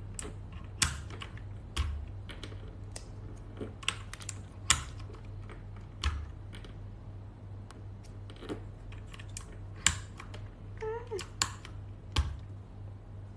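Plastic keyboard keycaps clicking and clacking irregularly as they are pressed and handled, with a few sharper, louder clicks, over a steady low hum.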